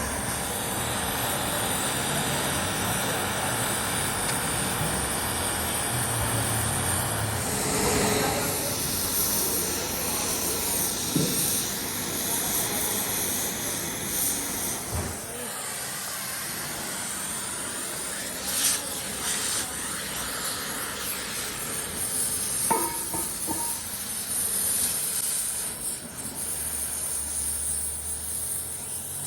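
Steady metalworking-shop machine noise, an even hiss-like din, with a few sharp knocks. It eases somewhat about halfway through.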